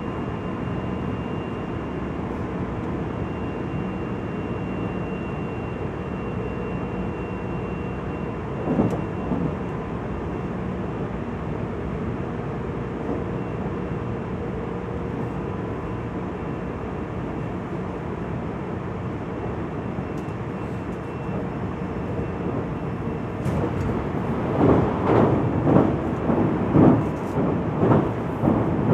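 Interior running sound of a JR Central 373 series electric multiple unit at speed, heard through a phone microphone: a steady rumble with a faint high whine. About 24 s in, a run of loud, uneven rumbling thumps sets in.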